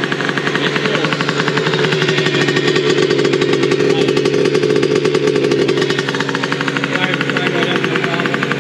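Two-stroke engine of a Yamaha Aerox scooter, fed by a newly fitted Smart Carb, idling with a fast, even pulsing beat, its speed wavering slightly now and then.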